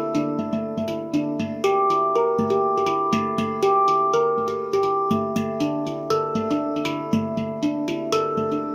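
Taopan Mini handpan in the Dimelodia Extended scale, played by hand: a steady stream of struck notes, several a second, each ringing on under the next so the tones overlap.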